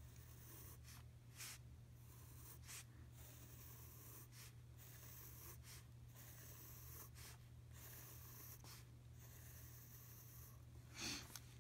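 Faint scratching of a pencil drawing short straight lines on paper, about ten separate strokes, over a low steady hum. A louder brief sound comes near the end.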